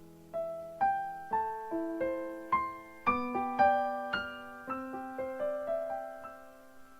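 Background piano music: a gentle melody of single notes, each struck and left to die away, a couple a second.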